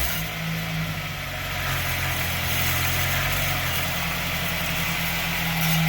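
Car engine idling steadily under the car, having dropped back from a light rev right at the start. The exhaust has a broken muffler clamp that the owner says makes a metal rattling noise.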